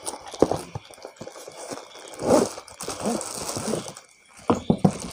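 Handling noise from unpacking a tripod: cardboard box flaps and sides scraping, plastic wrapping rustling, and scattered light taps and knocks as the wrapped tripod is slid out of its box. A few sharper knocks come near the end.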